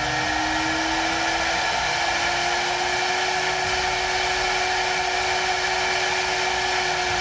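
CNC router spindle driven by a Huanyang VFD, whining at high speed with a 9-volt battery on its speed input. Its pitch rises slightly over the first few seconds as the drive nears about 400 Hz (close to the spindle's 24,000 RPM maximum), then holds steady.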